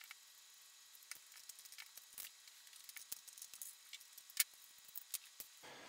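Faint, scattered clicks and taps of small switches and wire connectors being pulled off a 3D-printed plastic part by hand and set down on a table, with one sharper tap a little past the middle.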